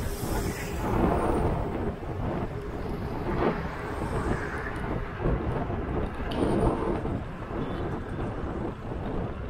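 Road and engine noise of a moving car, picked up by a dash cam: a continuous low rumble that swells and eases every few seconds.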